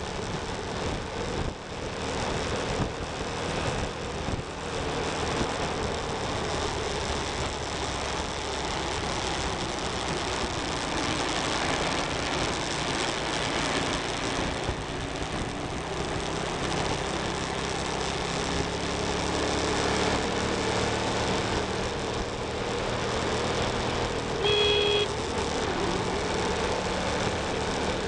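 Motorcycle riding at speed, its engine running steadily under heavy wind and road noise. A horn sounds once, briefly, near the end.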